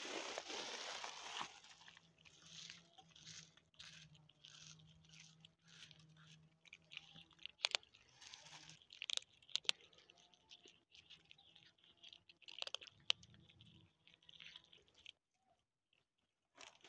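Several cats crunching dry kibble, a long irregular run of small crunches with a few sharper clicks, after a louder rustling noise in the first second or two.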